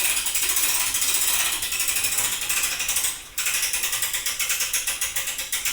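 Hand-cranked winch on a truck bed crane being cranked under load to lift the back of a golf cart, its ratchet pawl clicking rapidly and evenly, with a brief pause about three seconds in.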